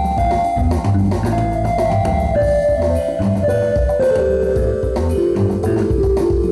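Band music: a steady drum-kit beat under a melody of held notes that step downward, with no singing.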